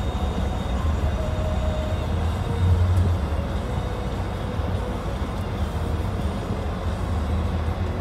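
Steady low rumble of a car driving on a snow-covered road, engine and tyre noise heard from inside the cabin, swelling briefly about three seconds in.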